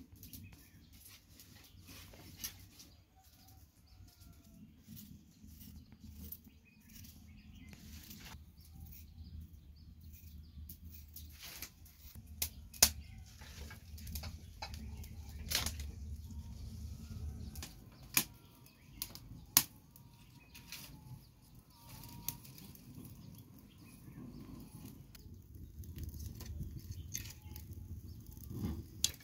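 Dry sticks and kindling being handled and snapped, with several sharp cracks, over a low, steady rumble.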